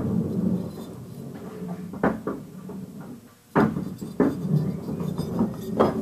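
Knocks and bangs of people moving things around: about four sharp thuds over a low murmur, the loudest a little past halfway through.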